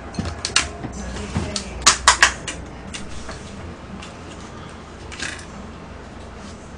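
Chopsticks and tableware clinking and knocking on a dining table during a meal. There are a few sharp clicks, and the loudest is a quick cluster of three about two seconds in.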